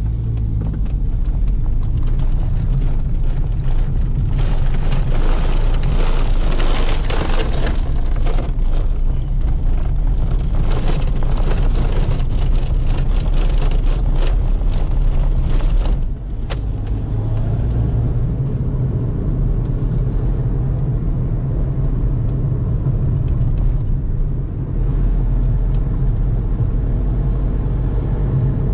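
Fiat Multipla engine and tyre noise heard from inside the cabin while driving in town, a steady low hum. For the first half a rougher rushing noise rides over it. The engine noise dips briefly about sixteen seconds in and again near twenty-five seconds, as gears change.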